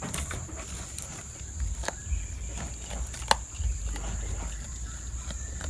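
Goats tearing at and chewing leafy awar-awar (Ficus septica) branches, with rustling leaves and stems and a few sharp snaps or clicks, the loudest a little past three seconds in.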